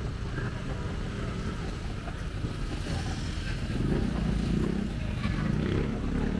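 Steady low rumble of nearby motor-vehicle traffic, growing a little louder about four seconds in.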